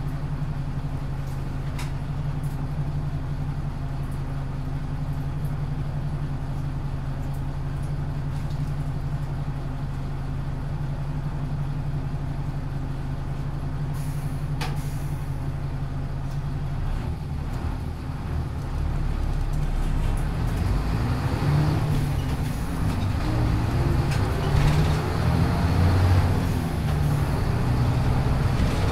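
1996 Hino Blue Ribbon city bus's diesel engine heard from the passenger cabin, idling steadily for the first seventeen seconds or so, with a short hiss about halfway through. The bus then pulls away, and the engine note rises and grows louder as it accelerates.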